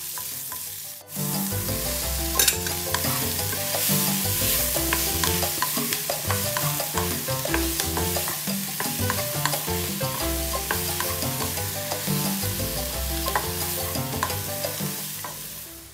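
Onions and sliced mushrooms sizzling in hot oil in a nonstick wok, stirred steadily with a wooden spatula that scrapes and taps against the pan in many quick clicks.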